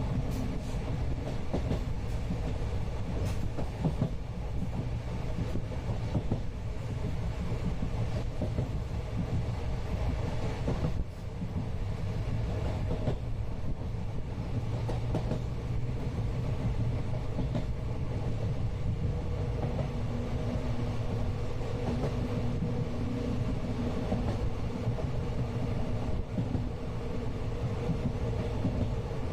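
Inside a moving Indian passenger train coach: the steady low rumble of wheels running on the rails, with scattered small clicks and knocks. A faint steady hum comes in about two-thirds of the way through.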